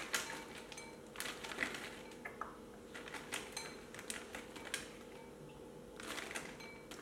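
Almonds poured a few at a time from a plastic bag into a ceramic bowl, making scattered light clicks as the nuts land.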